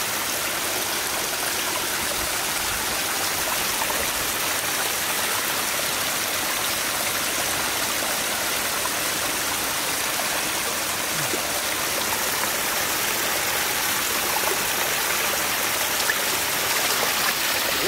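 Water running and splashing steadily over rocks into shallow water.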